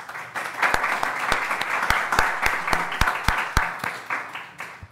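Audience applauding, a dense patter of many hands clapping that starts at once and dies away near the end.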